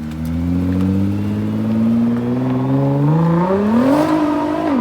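A car's engine accelerating, its pitch climbing slowly and then more steeply, with a sudden drop near the end as it shifts up a gear before climbing again.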